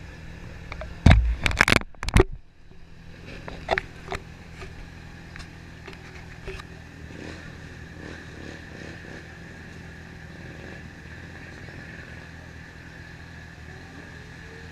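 Loud knocks and scraping of the camera being handled about a second in, followed by scattered clicks. Then a steady low engine hum, with no revving.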